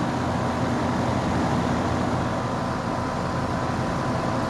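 2016 Lennox 2-ton heat pump running steadily in heat mode: an even mechanical hum with a thin, constant whine on top.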